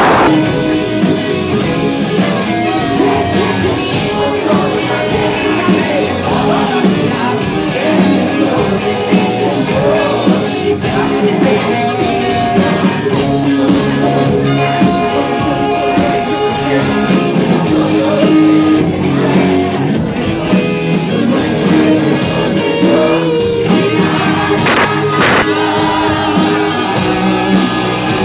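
Live rock band playing loudly, with a lead singer singing into a microphone over electric bass and the rest of the band.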